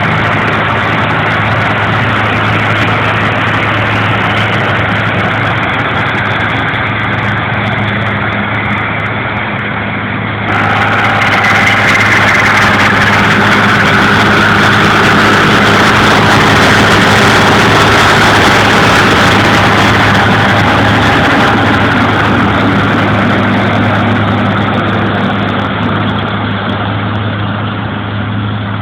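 Tractor engine running steadily while baling hay. About ten seconds in the sound grows louder and harsher, and it eases off again near the end.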